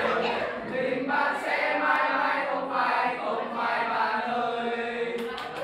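A group of high-school students singing a song together, many voices at once.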